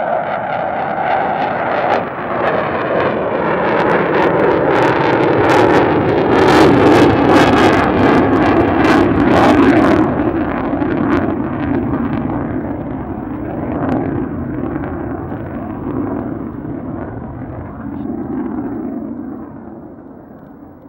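Su-24M's twin AL-21F-3 turbojet engines in afterburner as the jet climbs away after takeoff: a loud jet rumble that grows heavier, crackles hard through the middle, then fades steadily as the aircraft recedes.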